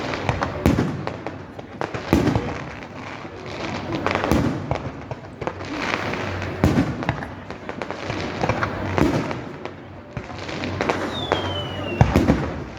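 Fireworks display: booming bursts about every two seconds, with crackling between them and a short falling whistle near the end.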